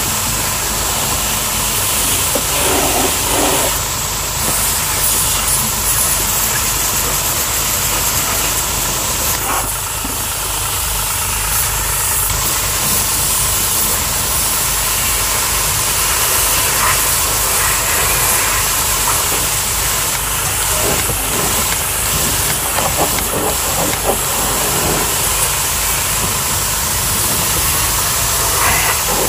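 High-pressure water jet hissing steadily as it blasts caked mud off a vehicle's wheel arch, over the constant low running of the pressure washer's pump motor.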